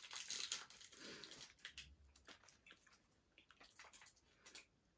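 Faint crinkling and scattered small clicks of foil-wrapped Christmas tree candies being unwrapped by hand, with soft biting and chewing.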